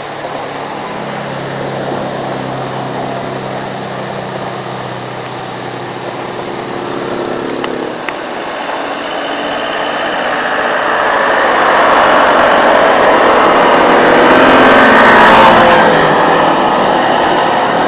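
Diesel engine of a JCB JS205SC excavator running steadily, then rising in pitch and growing louder from about halfway as it works under load, before easing slightly near the end.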